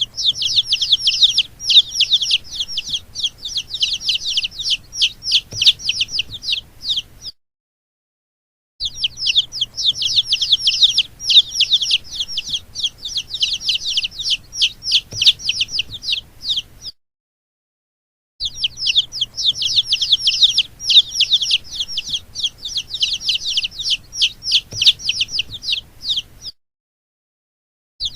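Domestic chicks peeping rapidly and shrilly, several high calls a second, each falling in pitch. The peeping comes in runs of about eight seconds, cut off twice by a second or so of complete silence.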